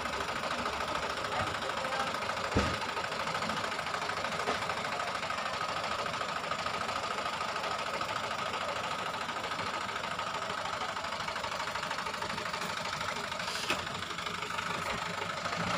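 Dump truck engine idling steadily, with a single knock about two and a half seconds in.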